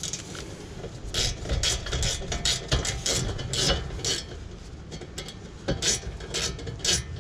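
Hand ratchet clicking in short, uneven strokes, about two a second, as a brake caliper bolt is wound in on a car's rear brake.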